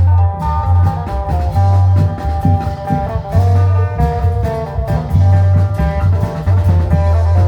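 Isan klong yao band playing live: a fast plucked-string melody over a deep, sustained bass and steady long-drum and percussion strokes.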